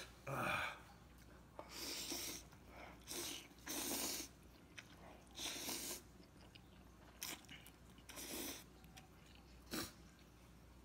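A man eating very spicy noodles: short, noisy slurps and sniffles come in about eight separate bursts, with chewing between. The sniffling comes from the chili burn making his nose and eyes run.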